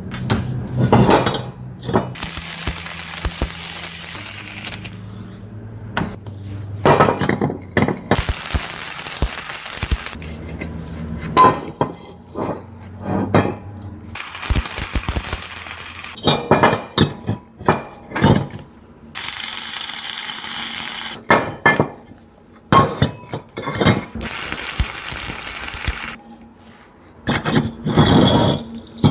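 Stick (arc) welding on hydraulic log-splitter blades: about five short runs of crackling, hissing arc, each a couple of seconds long and cutting off suddenly. Between the runs come sharp metallic clinks and knocks of steel being handled and tapped.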